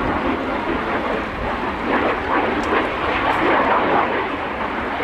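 Aircraft engine noise: a steady, unpitched rush that swells slightly now and then.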